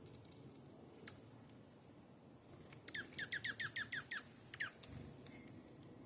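Small songbird calling: a single sharp downward-sweeping chirp about a second in, then a fast run of about ten quick downward-sweeping chirps, roughly eight a second, near the middle, and one more shortly after.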